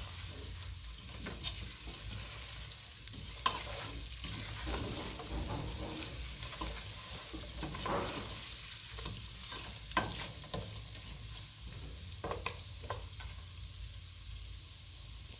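Beef, browned onions and masala frying gently in a pot with a faint steady sizzle, while a spoon stirs them, scraping and clinking against the pot now and then.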